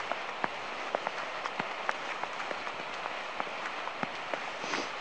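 Shallow river water running over a stony bed: a steady rush with many small splashes and ticks scattered through it.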